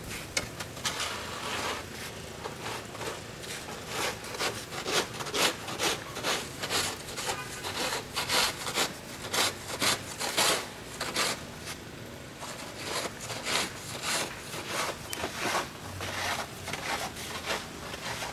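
Snow shovel scraping snow off a brick walkway in repeated strokes, about two a second, with a brief lull partway through.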